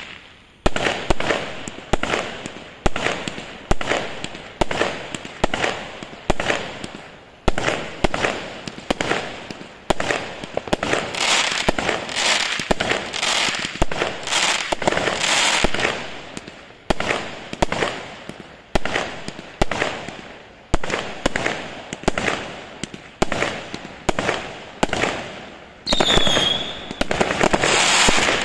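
Consumer firework cake firing shot after shot, about once a second, each launch thump followed by its burst in the air. Near the end a short falling whistle sounds among the shots.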